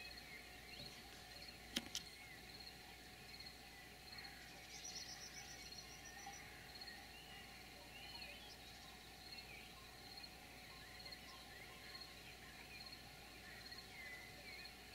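Faint meadow ambience: several birds calling and singing on and off, over an evenly repeated high chirp, with a brief high trill about five seconds in. A single sharp click comes a little under two seconds in.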